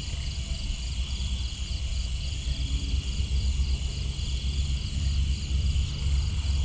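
Night insects such as crickets chirping in a steady, pulsing chorus, over a steady low rumble.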